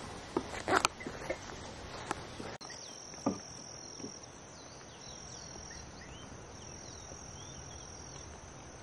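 Outdoor ambience: a steady high-pitched insect trill that stops and starts a couple of times, with a few faint short chirps. A handful of sharp knocks and thumps come in the first three seconds.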